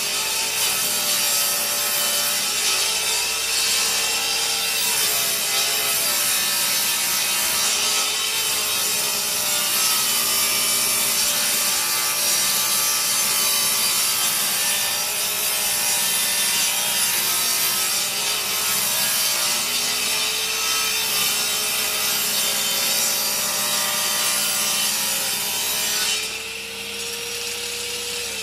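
Parkside PTK 2000 D3 table saw ripping a long board lengthwise: the blade cutting wood with a loud, steady noise while the motor note wavers as the board is fed. About two seconds before the end the blade clears the board and the saw runs on more quietly.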